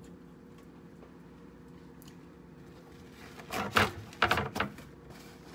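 Kitchen handling noise: a quick cluster of clattering knocks about three and a half to four and a half seconds in, over a steady low hum.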